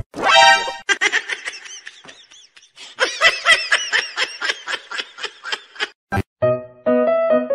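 High-pitched giggling laughter, quick rising-and-falling squeals about four or five a second, breaking off about six seconds in. Piano music with a steady beat follows.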